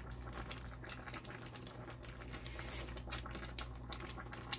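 A pan of seafood boil simmering in its sauce while two plastic spoons stir and scoop through it, giving scattered soft clicks and wet sounds over a steady low hum.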